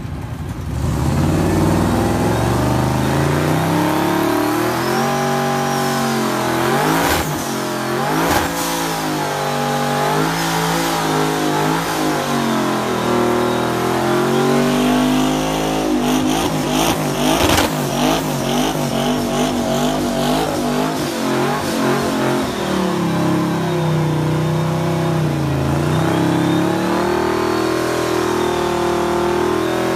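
1966 Chevy C10 pickup's twin-turbo LS V8 revving hard through a burnout, its rear tyres spinning. The engine pitch climbs and drops again and again, with a few sharp cracks around the middle.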